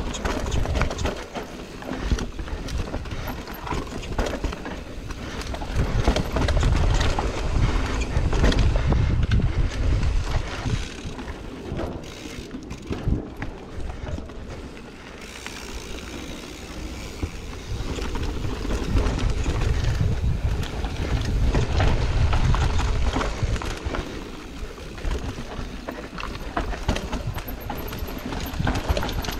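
Mountain bike descending a rough downhill trail at speed: tyres on dirt and rock, the bike rattling and clattering over bumps, with wind buffeting the microphone. It comes in louder and quieter stretches.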